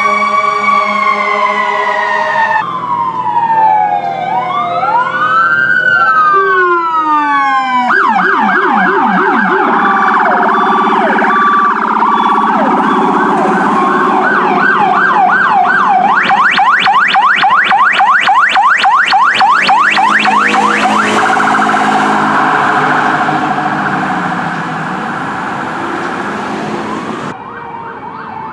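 Fire truck sirens responding: a steady siren tone slides slowly down, then gives way to slow rising-and-falling wail sweeps a few seconds in, then a fast yelp that speeds up further into a rapid warble. Near the end the sound turns to a denser, noisier blare, which cuts off suddenly.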